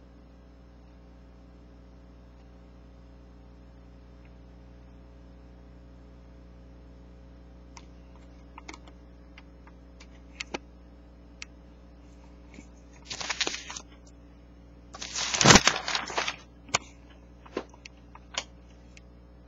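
Pages of a newsprint sales circular being handled and turned: scattered light crinkles and clicks, then two rustling bursts in the latter half, the second longer and the loudest, with a few more crinkles after. A steady low hum runs underneath, alone for the first several seconds.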